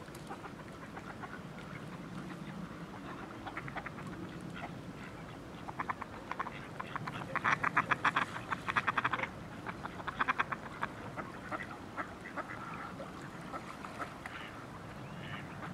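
Mallards quacking in rapid runs of short, repeated calls, densest and loudest about seven to nine seconds in.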